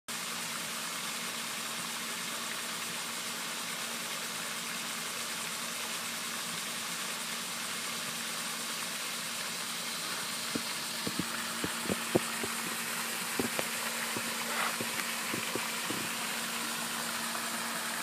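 Steady rushing spray of a pond's aerating fountain, with a low steady hum underneath. From about halfway through, scattered light knocks and taps.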